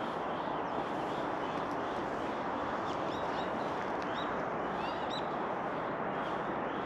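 Short, high chirping calls, several of them between about three and five and a half seconds in, over a steady outdoor hiss.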